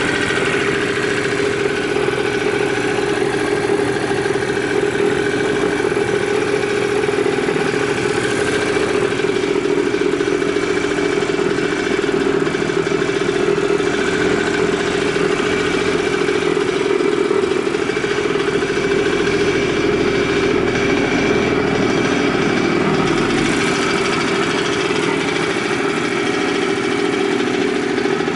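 Honda NS-1's 50cc two-stroke single-cylinder engine running steadily at idle, with no abnormal noise by the seller's account.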